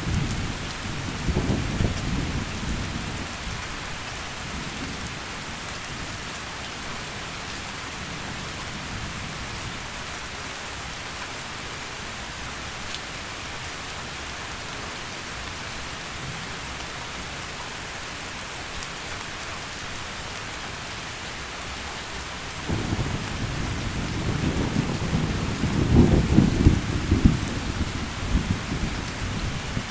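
Heavy rain falling steadily, with rolling thunder: a rumble dies away over the first few seconds, and another rolls in about three-quarters of the way through, loudest a few seconds before the end.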